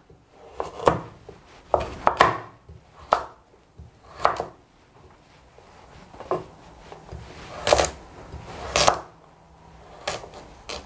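Cleaver chopping a carrot into cubes on a wooden cutting board: about a dozen separate knocks of the blade at an uneven pace.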